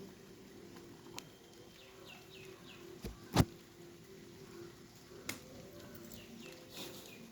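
A small bird chirping: two quick runs of three short falling notes, over a steady low hum. A few sharp clicks, the loudest about three and a half seconds in.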